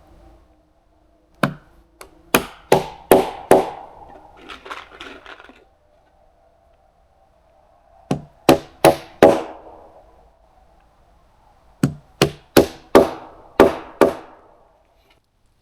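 Hammer blows on wood in three quick runs of about five, four and six strikes, like driving fasteners into a beam.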